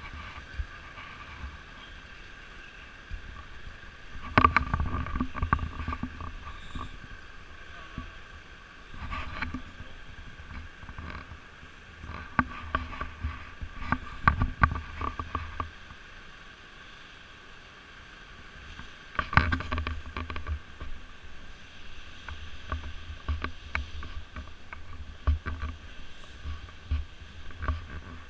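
Muffled knocking, rustling and rumbling from a GoPro being carried by someone walking, in irregular clusters over a steady faint hum.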